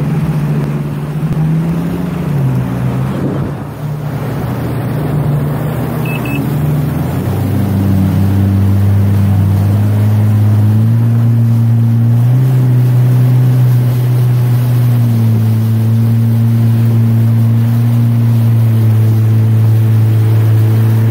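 Motorboat engine running steadily under way, heard from aboard with water rushing past. Its hum drops a little in pitch and grows slightly louder about seven seconds in, then holds steady.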